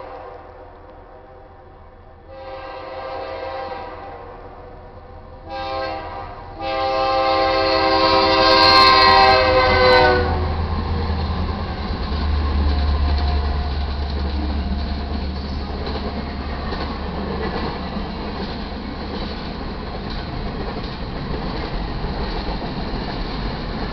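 Horn of a BNSF GE C44-9W diesel locomotive sounding the grade-crossing signal, long, long, short, long, louder with each blast as it approaches. The last blast is the loudest and ends about ten seconds in. Then the locomotives and double-stack container cars roll past at speed with a steady heavy rumble and wheel noise.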